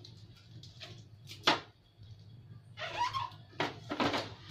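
Clear plastic packaging being handled and pulled off a new inkjet printer: crinkling and rustling, with one sharp snap about a second and a half in and a cluster of crackles and light knocks near the end.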